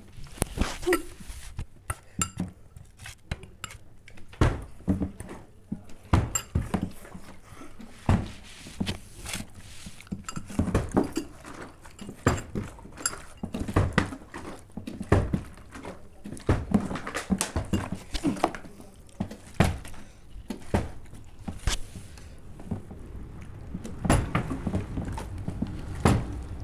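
Repeated irregular thunks of a half-filled plastic water bottle being flipped and landing on a tabletop, mixed with clinks of a fork against a glass bowl.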